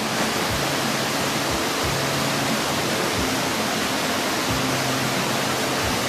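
Loud, steady rush of falling water from a waterfall, with soft background music of held low notes and faint low thumps underneath.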